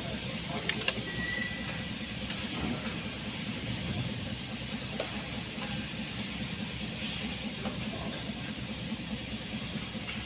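Steady hiss over a low rumbling hum, with a few light clicks and a brief thin high tone about a second in.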